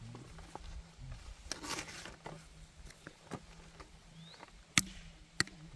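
A few sharp knocks and taps, the loudest two near the end, with short rustling sounds between them.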